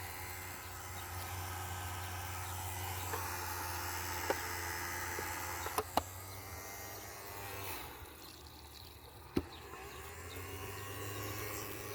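Small robot vacuum running with a steady motor hum, with a few sharp clicks or knocks.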